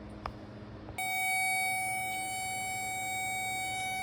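A small click, then about a second in a steady, high electronic beep tone starts and holds. It is a Power Probe circuit tester's tone as it is switched to feed battery power to the starter circuit.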